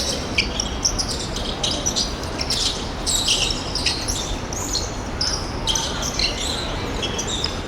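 Indoor korfball play: short, high sneaker squeaks on the court floor and the ball bouncing, over the steady rumble of a sports hall.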